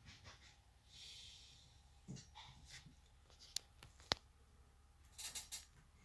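Quiet room tone with faint soft rustling and breathing-like noises, and two small sharp clicks about three and a half and four seconds in.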